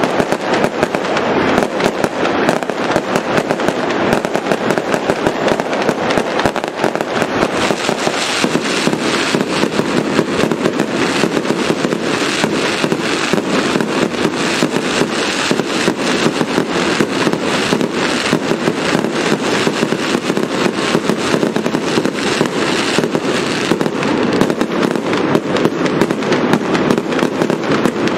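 Aerial fireworks display going off in a dense, unbroken volley of bangs and crackles, growing busier in the upper range about eight seconds in.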